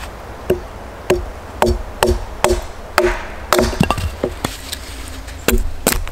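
Hatchet knocking a wooden stake into a log, about two blows a second, each a sharp woody knock with a short ring.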